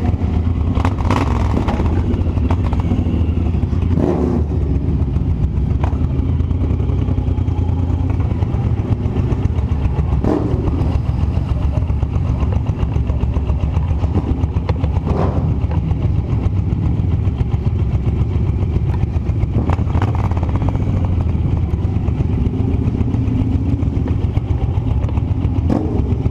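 An engine running steadily with a low drone, with a few short knocks or clicks scattered through.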